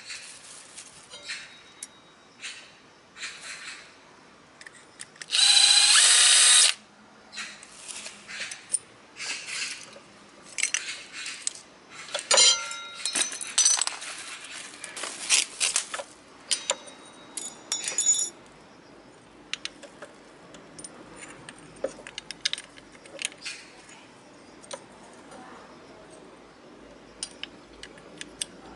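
A power tool runs once for about a second and a half while the scooter's front brake caliper is being unbolted. Around it come many short metallic clicks and clinks of tools and metal parts being handled, thinning out to scattered quieter clicks in the second half.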